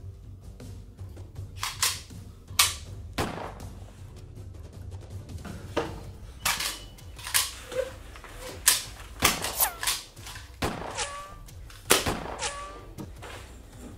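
Gunfire: about a dozen sharp, irregularly spaced shots, the loudest about two and a half seconds in and near the end.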